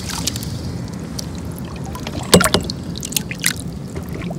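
Seawater splashing and trickling at the side of a small boat as a bass is let out of a landing net, with a sharper splash about two seconds in and a few small clicks after it.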